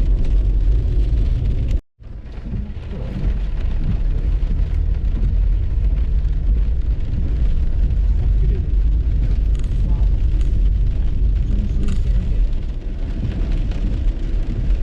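Steady low rumble of a car driving through heavy rain, with rain noise over it. The sound cuts out for a moment about two seconds in.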